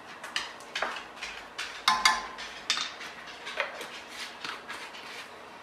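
Scattered light clinks and taps of a measuring spoon, spice jar and pan as garlic powder is measured out and added, the sharpest couple of clinks about two seconds in.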